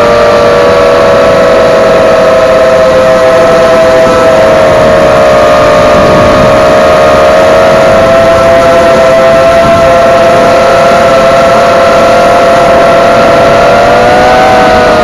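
Eachine Falcon 250 FPV quadcopter's motors and propellers running at a steady speed, a loud, even whine of several tones, with the pitch shifting a little near the end as the throttle changes.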